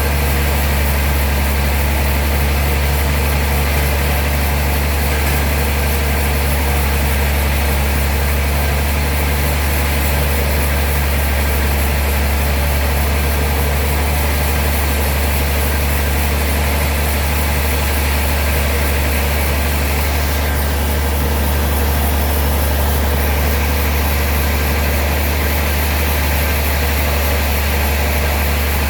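Sawmill machinery running steadily, a loud, constant low hum with no break or change.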